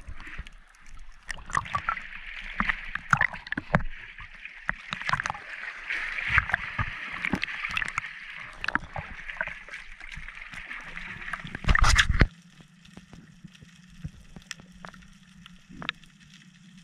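Underwater handling noise heard through a camera's waterproof housing: many sharp clicks and knocks of a speargun's shaft and line being handled with a speared bream on it. A brief loud rush about twelve seconds in, then a low steady hum with only a few clicks.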